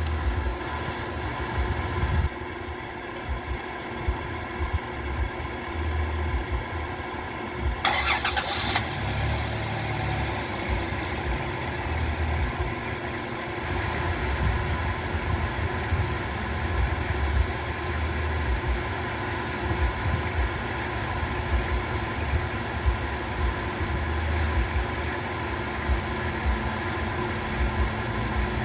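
A steady engine-like hum from a motor running, with uneven low knocks of parts being handled. There is a brief metallic rattle about eight seconds in.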